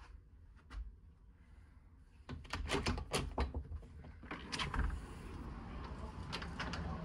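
Glass balcony door being unlatched and opened: a run of clicks and rattles from the lever handle and latch starts about two seconds in, with a few more clicks a couple of seconds later. As the door opens, steady outdoor noise comes in and stays.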